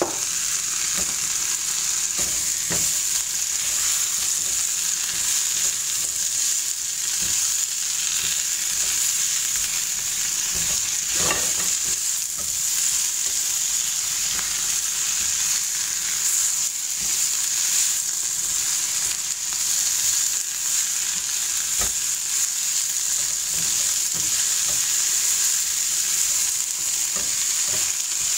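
Spinach sizzling steadily as it wilts in a non-stick frying pan, stirred with rubber-tipped tongs, with a few light knocks of the tongs against the pan.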